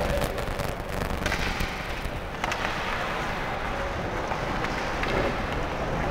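Ice hockey play: sharp, irregular clacks of sticks and puck striking, over steady noise of the ice arena.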